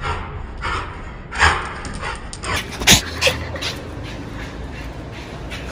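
Small dog panting in short breathy puffs as it trots up, with a sharp click about three seconds in.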